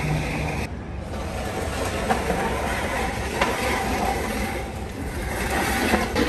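Plate-loaded weight sled sliding across stone paving tiles, its steel runners giving a continuous scraping rumble as it is hauled and pushed.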